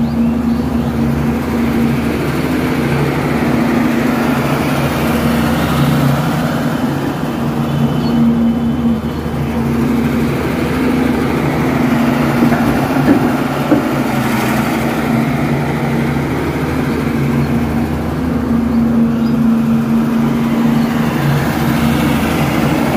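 Caterpillar hydraulic excavator's diesel engine running steadily, a loud even drone with only small rises and falls in level.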